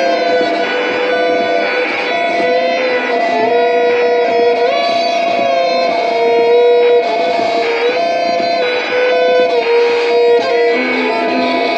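Experimental live music from a Violik de TchalaZak string instrument with electronics: held string notes that slide in pitch against a steady drone.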